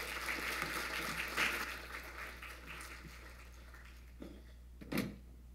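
Audience applauding at the end of a talk, the clapping dying away over the first three seconds or so. A short vocal sound near the end.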